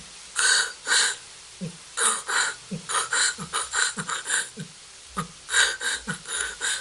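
Human beatboxer performing the radio-tuning filter effect: short 808 bass drops alternating with dragged 'k' snares pulled inward and pushed outward, heard as a repeating run of low, falling bass hits and hissy filtered bursts.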